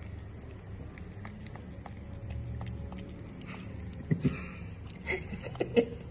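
A cat licking a squeeze-tube cat treat, with faint small wet clicks of tongue and mouth. About four seconds in, and again a second later, come several loud, sharp clicks and knocks close to the microphone as the cat pushes its face and body up against the phone.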